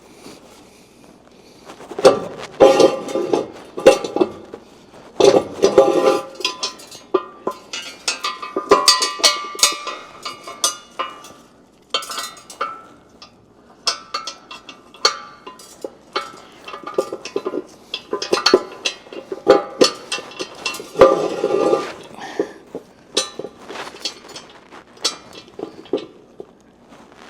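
Metal tools and parts clinking and clanking in an irregular run of sharp knocks and rattles, some ringing briefly.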